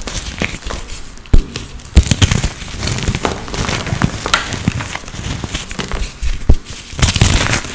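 Dried blocks of reformed holi colour powder being crushed, crumbling and crunching in a dense crackle. Three sharp snaps stand out, two close together early on and one later.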